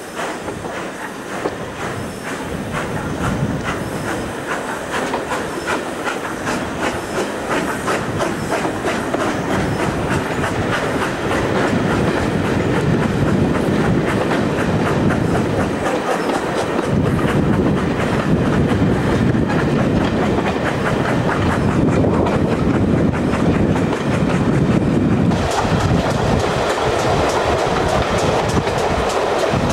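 Railway carriage running along the line, its wheels clicking over the rail joints in a steady rhythm, heard through an open carriage window. It gets louder over the first dozen seconds.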